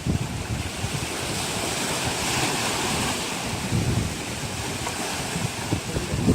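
Sea waves washing, with wind buffeting the microphone in low gusts; the hiss of the water swells about two seconds in.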